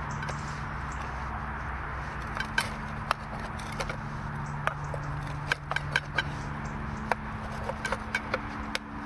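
Metal knife and fork clinking and scraping against an enamel bowl while cutting food: scattered sharp clicks, more frequent in the second half. A steady low hum sits underneath.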